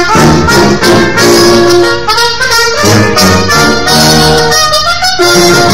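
Brass-led theme music: a melody of short, changing notes over a low bass line.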